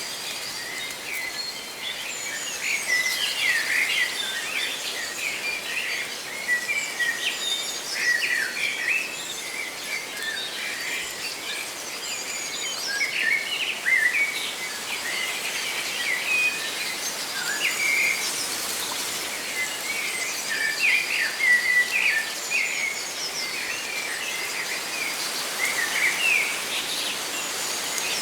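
Many small birds chirping and trilling in quick, overlapping calls over a steady rustling of leaves.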